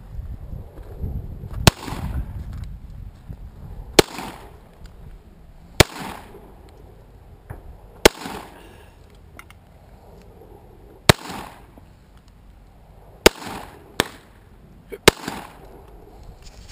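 Rock Island Armory GI M1911A1 .45 ACP pistol fired eight times in slow fire. Each sharp shot trails off briefly. The shots come mostly two to three seconds apart, and the last three come closer together.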